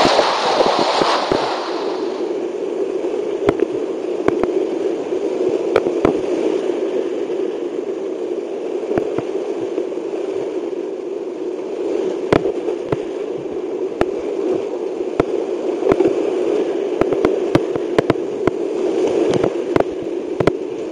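Class IV–V whitewater rushing and churning close around a kayak, picked up by a helmet camera and played back at double speed, with many sharp clicks and crackles throughout. A louder, wider splash comes in the first two seconds.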